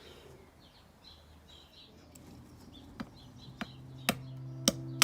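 Faint bird chirps, then background music fading in from about three seconds in, with sharp percussive hits over sustained notes.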